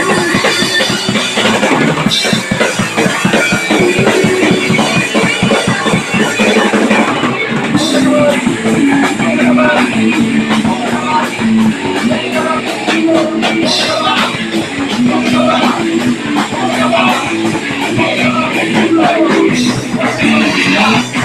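Live punk rock band playing at full volume: distorted electric guitars, bass and pounding drum kit.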